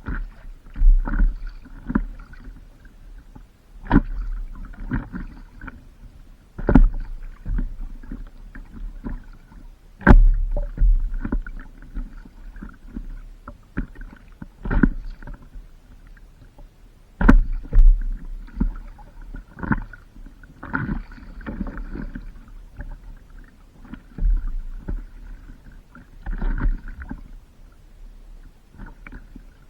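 Water splashing and slapping around a stand-up paddleboard as it is paddled. There are irregular sharp splashes every one to three seconds, each with a low thump, over a quieter wash of water.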